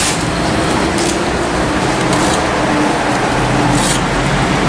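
Steady street traffic noise with a faint vehicle hum, and two brief high scraping hisses, the second near the end.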